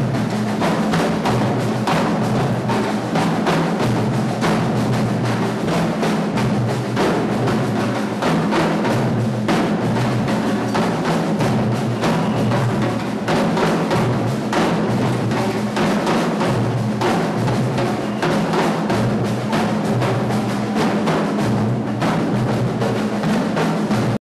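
Drum kit played continuously with dense, fast strokes, over a steady low tone.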